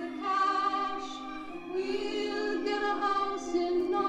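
Vinyl record of a woman singing, played on a budget DIGITNOW turntable. Long held notes come through thin, with no bass. The playback is warbly from heavy wow and flutter, which the reviewer puts down to a cheap motor and a light plastic platter.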